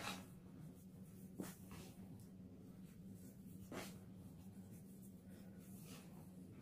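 Hands digging and squeezing into a tub of powdered gym chalk, making faint soft powdery swishes, four of them a second or two apart, over a low steady hum.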